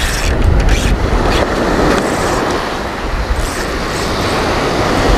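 Waves breaking and washing up a pebble beach, with wind rumbling and buffeting on the microphone, a steady loud noise with a few brief rattling crackles.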